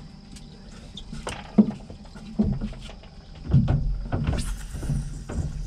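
Irregular knocks and thumps of people and fishing gear moving about on a boat, with a sharp knock about a second and a half in and a run of heavier low thumps through the second half.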